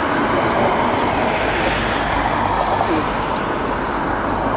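Panavia Tornado GR4's twin RB199 turbofan engines running steadily at low taxi power, heard from a distance as an even rushing jet noise.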